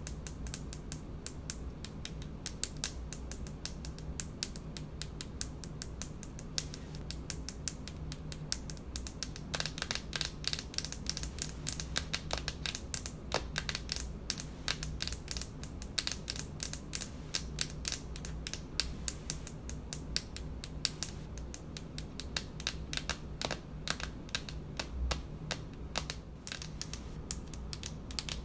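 Long painted fingernails tapping on a speckled stone-look countertop: a fast, steady run of sharp clicks, louder for a few seconds around the middle.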